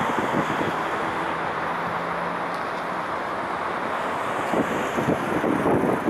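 Steady city road traffic noise, with wind buffeting the microphone in gusts that pick up near the end.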